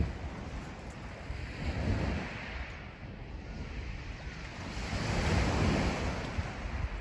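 Sea waves washing onto the shore, surging twice: once about two seconds in and again, louder, around five to six seconds. Wind buffets the microphone with a low rumble.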